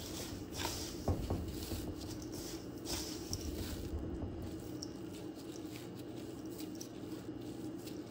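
Gloved hand pressing battered shrimp into a crumb coating in a stainless steel bowl: soft, irregular crunching and rustling of the crumbs and the plastic glove, with the most distinct strokes about a second in. A steady low hum runs underneath.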